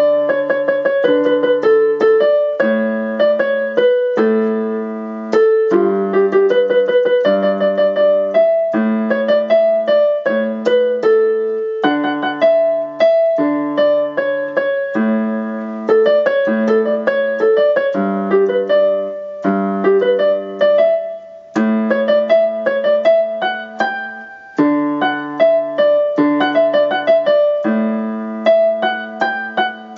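Piano-voiced keyboard playing the song's instrumental interlude: held chords that step through the D–A–G–A progression every second or two, with a melody picked out above them in the right hand.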